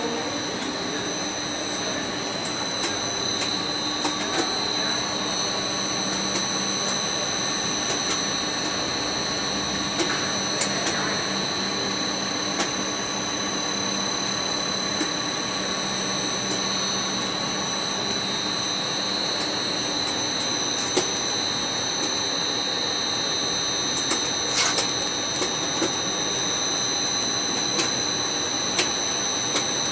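Compound bubble film production machine running steadily: a constant mechanical noise with a steady high whine on top and occasional sharp clicks.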